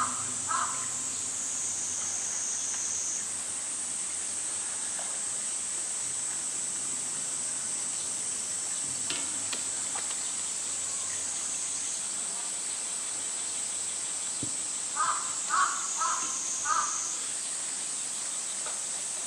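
A crow cawing: a couple of caws right at the start and a run of about five about fifteen seconds in. Under it runs a steady high insect drone.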